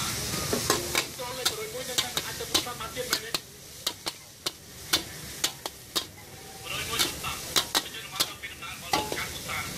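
Metal spatula clacking and scraping against a steel wok as food is stir-fried, about two strikes a second at an uneven pace, over a light sizzle.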